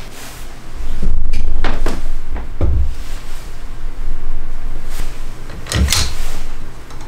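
Knocks and clunks of a power tool and a screwdriver being handled against a wooden jig while a hose clamp round the multi-tool's body is tightened. There are two clusters of sharp knocks, about two seconds in and near six seconds, with low rubbing and rumbling between them.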